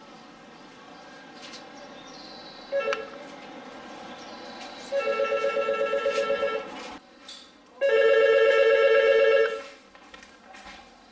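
Telephone ringing with a fast electronic warble: a short chirp, then two rings of about two seconds each.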